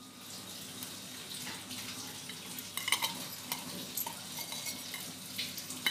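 Ghee melting in a hot stainless-steel kadhai, with a soft sizzle and scattered small crackles as the fat heats.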